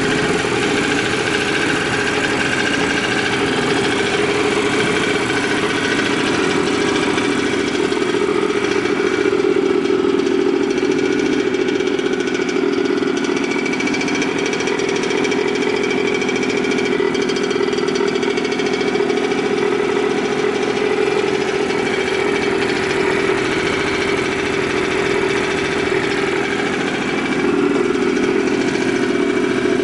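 A Honda NS-1's 50cc two-stroke single, fitted with a big carburettor, running steadily at idle. It runs clean, with no abnormal noises.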